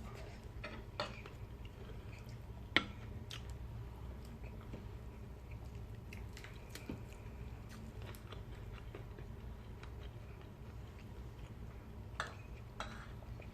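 Quiet chewing of fried fish with a few sharp clinks of tableware, the loudest about three seconds in and two more near the end, over a steady low hum.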